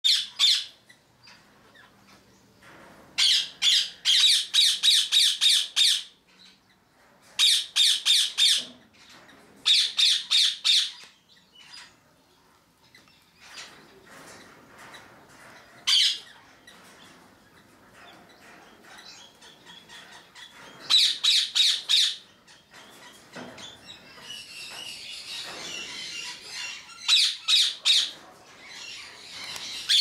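Cloncurry parrots, a subspecies of Australian ringneck, calling in loud series of rapid sharp squawks, several series separated by pauses, the longest lasting about three seconds. A soft rustling hiss runs between calls near the end.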